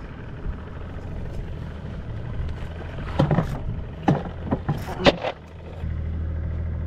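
Boat's outboard motor idling with a steady low hum, with a handful of short knocks and rattles between about three and five seconds in.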